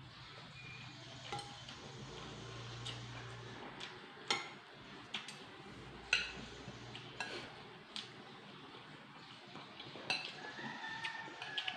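Cutlery clinking and scraping against plates during a meal, a dozen or so irregular light clinks.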